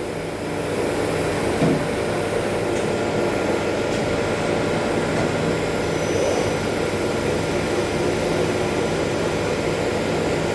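Schaublin TM-65Y CNC lathe running while machining a steering rack piston: a steady mechanical hum with several held tones, and a short knock about a second and a half in.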